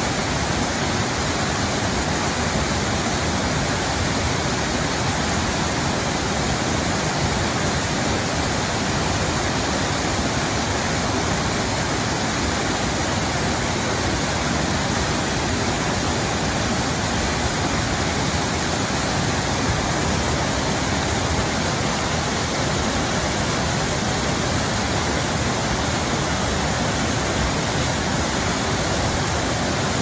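Mountain waterfall cascading over rock ledges: a steady, even rush of falling water that never lets up.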